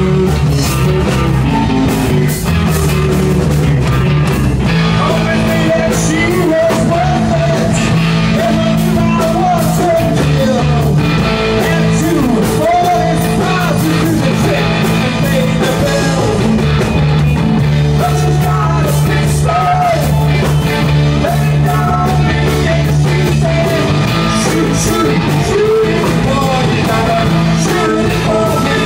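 Live rock band playing loud, with electric guitars, bass guitar and a drum kit, and a man singing into the microphone.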